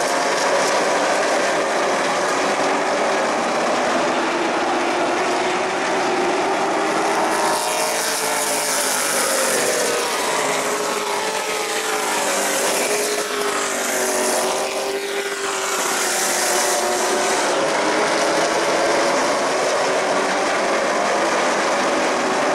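Pro Late Model stock cars racing on an asphalt short track: a steady V8 engine drone, with a group of cars passing close from about a third of the way in until about three quarters through, their engine pitch sweeping as they go by.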